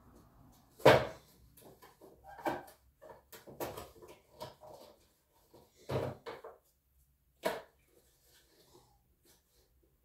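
Cardboard box being handled: a sharp knock about a second in, then scattered light taps and rustles, and two more thumps, one near six seconds as the box is set down on a table and another about a second and a half later.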